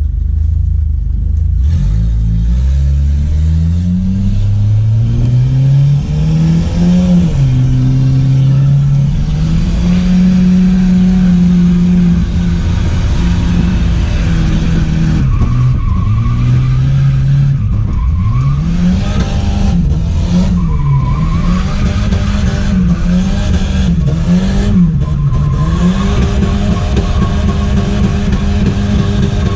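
Turbocharged Volvo wagon's engine heard from inside the cabin, revving up hard over the first few seconds and then held at high revs, rising and falling again and again as the car is drifted.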